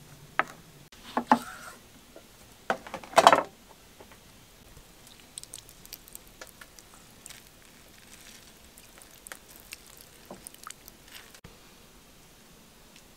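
A few sharp clicks and knocks against a stone mortar as spices go in, the loudest about three seconds in, then a lemon being squeezed: light squishing and juice dripping into the mortar.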